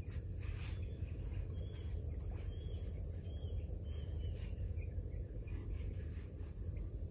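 Steady high insect drone, with a few short bird chirps about one and a half to four and a half seconds in, over a low rumble.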